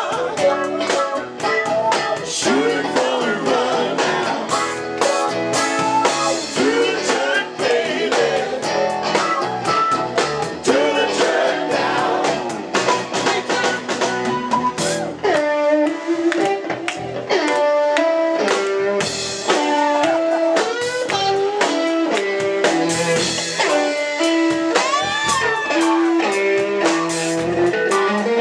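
Live blues-rock band playing, with singing over electric guitar, bass and drum kit. From about halfway the low end thins and a single electric guitar line takes the lead over the drums.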